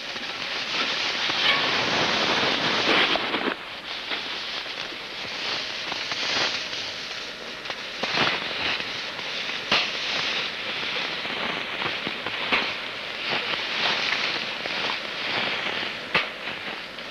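Close, continuous rustling and handling noise from people moving right at the microphone, with a sharp snap or click every couple of seconds.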